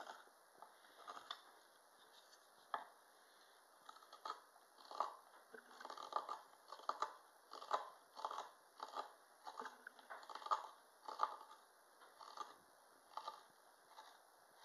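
A small carving knife paring shavings off a wooden spoon blank: a run of short, faint slicing strokes, roughly one every half second to a second, coming faster from about four seconds in.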